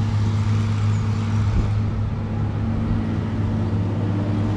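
Steady low engine hum, like a motor vehicle idling, with general road traffic noise.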